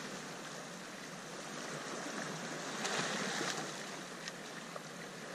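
Sea waves washing over the rocks, a steady rush that swells about three seconds in.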